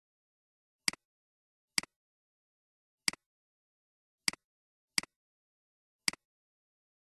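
Computer mouse clicks: six sharp clicks at uneven intervals, each a quick double tick of button press and release.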